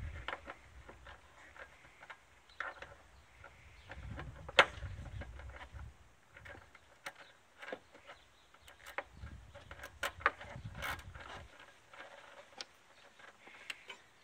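Scattered clicks and knocks of hand tools and parts being worked under a car's hood while the battery cover and battery hold-down are taken off, with one sharp click about four and a half seconds in.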